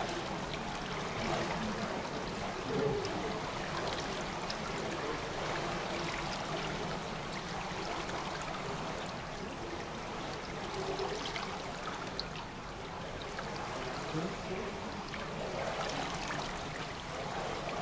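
Steady trickle and splash of pool water running into the overflow gutter's grating, in the echo of an indoor pool hall.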